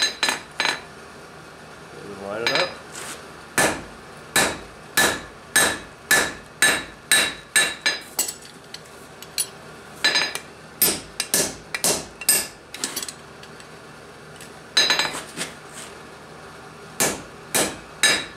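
Hand hammer striking a red-hot square steel bar on an anvil, drawing out a scarf for a forge weld: runs of blows at about two a second, each with a short metallic ring, broken by a couple of brief pauses.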